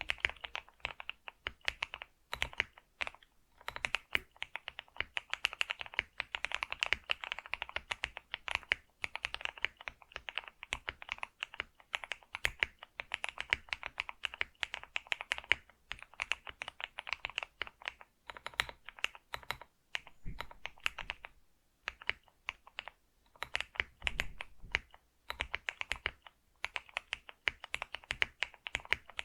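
Computer keyboard being typed on in fast runs of key clicks, with brief pauses between bursts and a few heavier low thuds from keys bottoming out or the spacebar.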